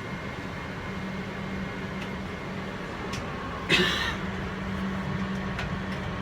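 Moving train heard from inside the carriage: a steady rumble with a constant low hum, and a brief louder rush of noise about halfway through.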